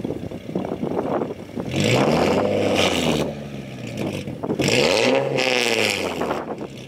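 Nissan 370Z Nismo's VQ37VHR V6, breathing through Invidia test pipes, a Tomei Y-pipe and a Tomei Expreme Ti cat-back exhaust, revved twice from idle to about 2,000–3,000 rpm. Each rev rises, holds briefly and drops back.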